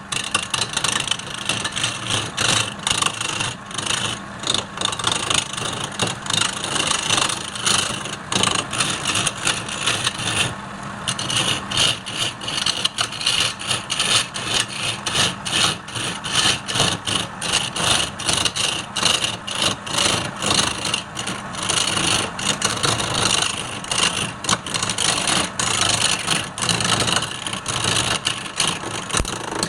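Wood lathe running while a turning tool cuts into the spinning wood: a dense scraping hiss that pulses rapidly and unevenly. The cutting lets up briefly about ten seconds in.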